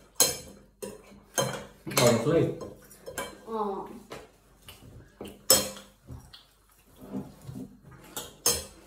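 Scattered sharp clinks and knocks, about six, the loudest about five and a half seconds in, with a few short voice sounds between them.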